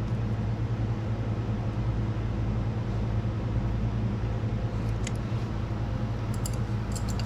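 A steady low hum, with a few faint light clicks about five seconds in and again near the end as a 12 mm wrench tightens the lock bolt on the parking-brake adjuster.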